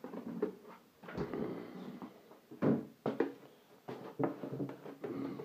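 A fridge door being opened, with a run of knocks and clunks as things inside are handled.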